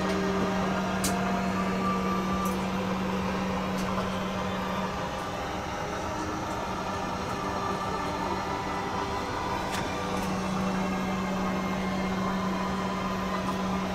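Steady airliner cabin noise inside an Airbus A321-200: an even rush of air with a constant low hum, which weakens for a few seconds midway and then returns, and a few faint clicks.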